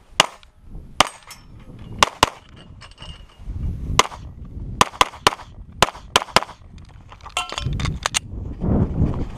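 A Springfield XDm 9mm pistol fired in a rapid stage string: about fifteen sharp shots, many in quick pairs, broken by short pauses as the shooter moves between positions. A low scuffing rumble of movement comes between the strings.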